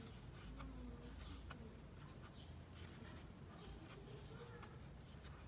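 Near silence, with faint scattered ticks and rustles of a crochet hook working yarn through the stitches.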